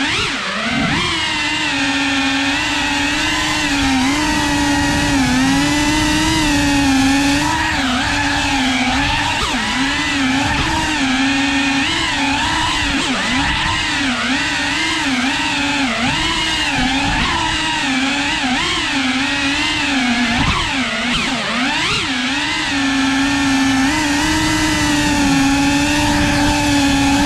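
Cinewhoop FPV drone's brushless motors and ducted propellers whining, the pitch wavering constantly up and down with throttle changes. A deeper dip and sharp rise in pitch comes about two-thirds of the way in.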